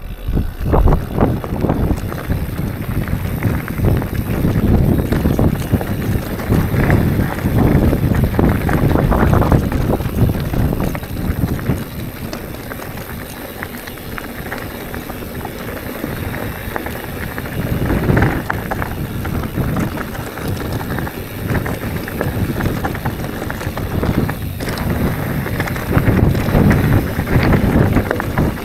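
Mountain bike being ridden along a dirt trail: wind buffeting the microphone over the uneven rumble of tyres on the ground, swelling and easing as the ride goes on.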